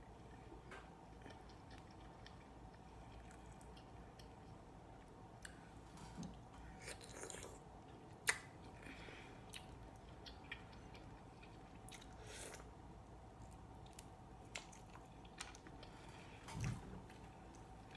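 Faint close-up chewing and wet mouth sounds of someone eating shrimp and mussels, with scattered small clicks. There is one sharp click about eight seconds in and a low thump near the end.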